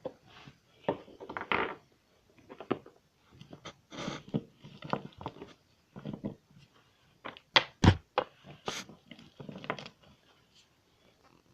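Small plastic Littlest Pet Shop toy figures and playset pieces being handled and set down, giving irregular light clicks and knocks, with one sharper knock about eight seconds in.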